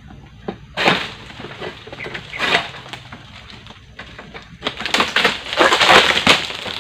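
Egrek (oil palm harvesting sickle on a long pole) cutting through oil palm frond stalks, with dry fronds scraping and tearing: a short burst about a second in, another at about two and a half seconds, and a longer, louder one from about five to six and a half seconds in.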